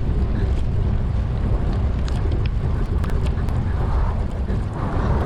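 Wind buffeting the microphone of a camera on a moving bicycle: a steady low rumble with a few faint ticks.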